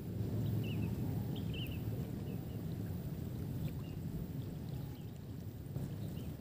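Wind rumbling on the microphone across an open flooded marsh: a steady low noise, with a few faint high chirps in the first two seconds.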